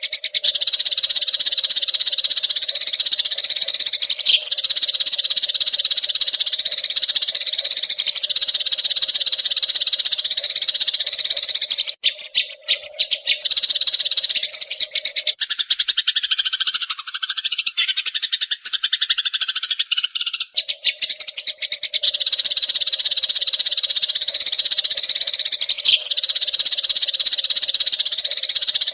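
Eurasian tree sparrows chattering in a loud, continuous rapid stream of chirps. Around the middle the stream breaks and gives way to a few seconds of lower, more broken calls before the dense chatter returns.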